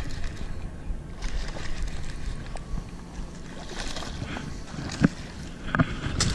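A bass splashes at the surface about four seconds in as it throws the hook and drops back into the river, over a steady low rumble of wind and water. A few sharp clicks of fishing gear follow near the end.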